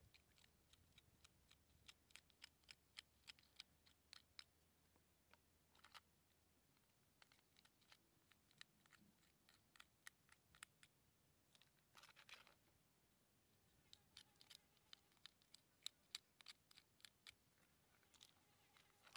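Faint clicks and scrapes of a metal spoon scooping roe out of cooked crab shells and into a coconut-shell bowl. They come in clusters of quick ticks with short pauses, and there is one longer scrape about two-thirds of the way through.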